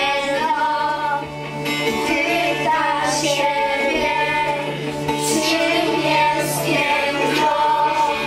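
A group of girls singing a song together into microphones over instrumental accompaniment, with long held notes.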